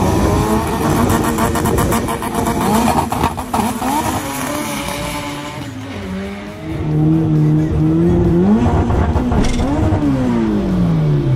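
High-powered Honda Integra drag car's engine under hard acceleration, its pitch sweeping up repeatedly through the gears, holding level, climbing once more, then winding down steadily near the end as it comes off the throttle.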